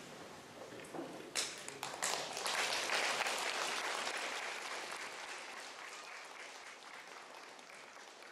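Audience applause: a few scattered claps about a second in, swelling quickly into full clapping that then slowly fades away.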